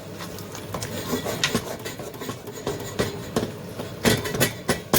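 A spoon stirring a simmering curry in a pot, scraping and knocking against the pot in a run of irregular clicks, loudest near the end.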